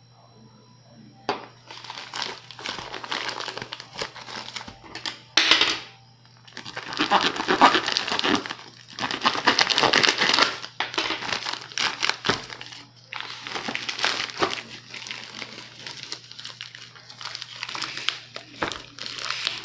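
Plastic courier mailer bag crinkling as it is cut with a knife and torn open, in irregular bursts of rustling that start about a second in.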